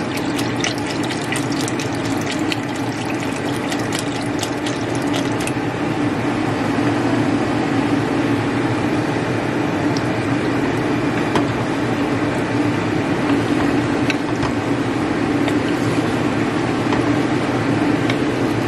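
Chicken stock pouring into a pot of chunky soup, splashing for the first five seconds or so; then a wooden spoon stirring the soup, with a few scattered clicks. A steady hum runs underneath.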